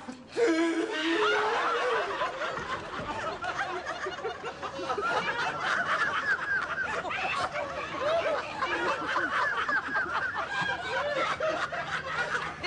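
People laughing: a dense, continuous run of overlapping snickers and chuckles that breaks out sharply about half a second in.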